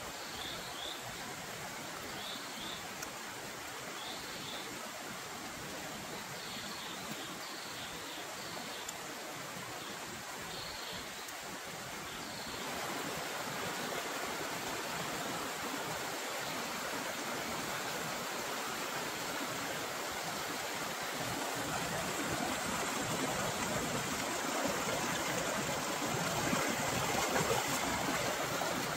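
Steady rushing of a flowing stream, with short high-pitched chirps now and then over the first twelve seconds. About twelve seconds in the rushing steps up in level, and it grows louder toward the end.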